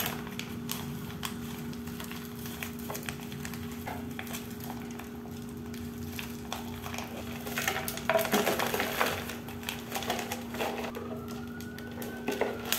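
Crinkling and rustling of a thin plastic nursery bag and crumbling potting soil as a root ball is worked loose by hand, busiest about two-thirds of the way in, over a steady low hum. A distant siren rises and falls near the end.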